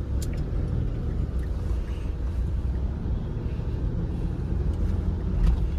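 Diesel car driving, heard from inside the cabin: a steady low rumble of engine and road noise.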